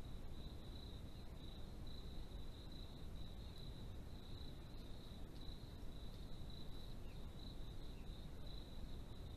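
Crickets trilling steadily on one high pitch, over a low, constant background hiss.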